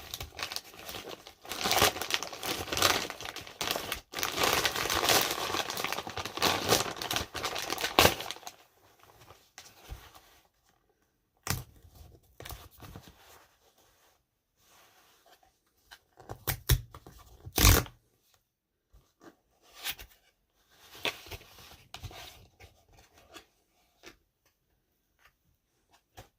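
Product packaging being torn open, with crinkling. After about eight seconds the tearing stops and gives way to scattered quieter rustles and a few sharp handling knocks as the box is worked open.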